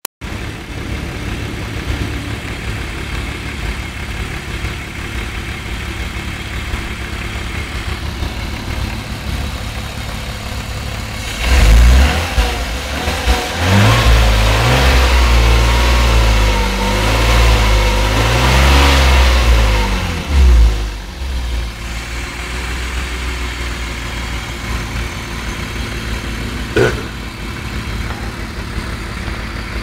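An old car's engine idling steadily, then revved up and down several times for about ten seconds from roughly twelve seconds in, and settling back to idle, with one short blip of the throttle near the end.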